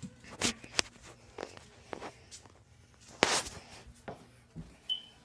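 Handling noise from a handheld phone being carried: fingers rubbing and tapping near the microphone, scattered clicks and footsteps, with one louder scratchy rub about three seconds in.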